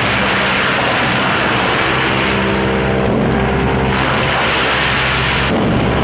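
Drum wood chipper running under power: a steady engine drone with a hiss of chipping over it that drops away briefly about three seconds in and again near the end.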